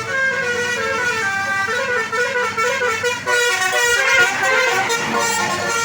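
Multi-tone Basuri telolet horn on a tour bus playing a quick melody of stepping notes, loudest about four seconds in.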